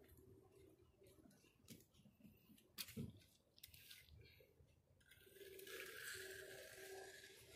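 Faint scraping of a hand trowel worked along the edge of wet, freshly poured concrete, becoming a steady hiss from about five seconds in. A single sharp click about three seconds in is the loudest sound.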